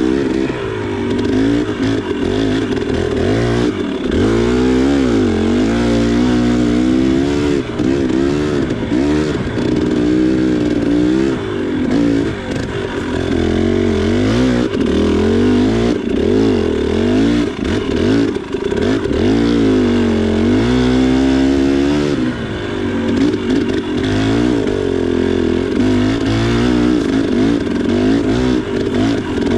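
A 2019 KTM 300 XC's single-cylinder two-stroke engine under way, its revs rising and falling over and over as the throttle is rolled on and off.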